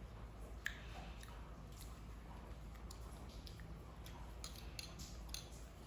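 Spoons clicking and scraping against plastic yogurt cups in a few scattered light ticks, with the soft mouth sounds of a baby monkey eating yogurt off a spoon.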